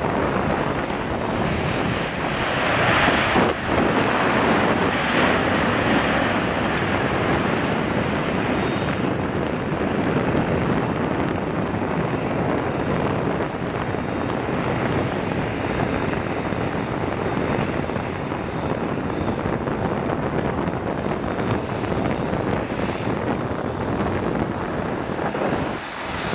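Airbus A300-600F freighter's jet engines running with a steady roar as the airliner touches down and rolls out on the runway. The roar is loudest for a few seconds shortly after the start, then holds a little lower.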